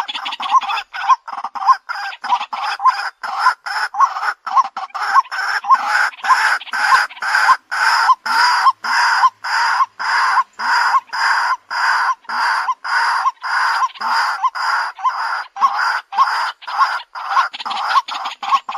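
White-breasted waterhen calling: a loud, rhythmic run of short, harsh "kwak" notes repeated about two to three times a second.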